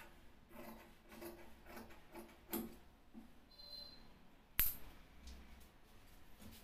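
Large tailor's shears cutting through cotton shirt fabric on a cutting table, a run of soft, quick snips. A single sharp click comes about four and a half seconds in.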